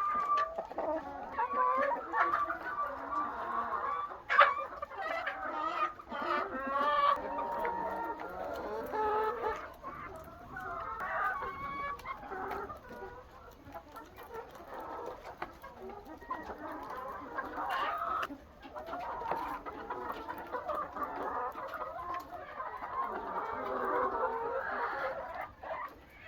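A large flock of laying hens clucking and calling over one another without a break, with a sharp knock about four seconds in.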